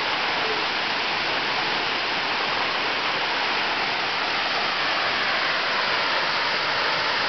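Tall, narrow waterfall plunging down a mossy cliff into a pool, giving a steady rushing roar of falling water.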